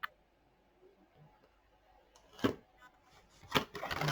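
Toy car packaging being handled: a single click, a sharp rustle about two and a half seconds in, then a quick run of small plastic clicks and rustling near the end.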